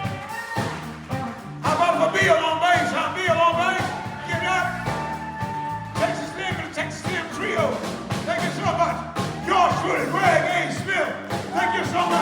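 Live blues-rock band playing: lead guitar with bent, wavering notes over a steady bass line and drums.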